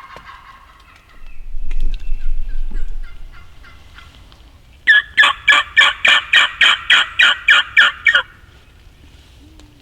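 A hunter's turkey call making a loud series of about eleven evenly spaced yelps, roughly three a second, from a road hunter calling from a truck that has pulled up. A low rumble comes about a second in, before the yelping.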